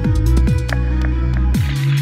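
Background music with deep held bass notes and a steady kick-drum beat.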